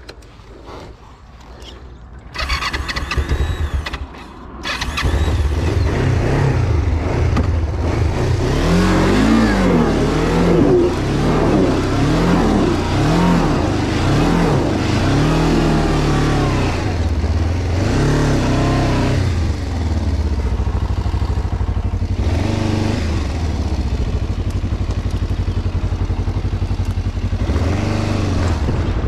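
Kawasaki KLE500's 498 cc parallel-twin engine being started about two seconds in, catching fully around five seconds in. It is then revved up and down several times and runs on steadily under the throttle.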